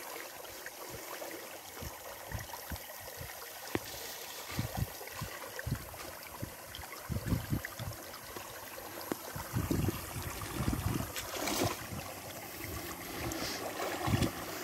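Shallow stream flowing over stones, with irregular sloshing and splashes from someone wading waist-deep and moving through the water. The loudest splash comes about halfway through.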